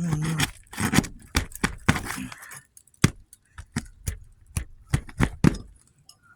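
Irregular sharp metallic clicks and knocks, a few a second, from a steel snake tool prying roofing nails out from under asphalt shingles.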